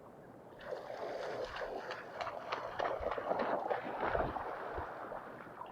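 Creek water sloshing and splashing, with a few low thumps around the middle.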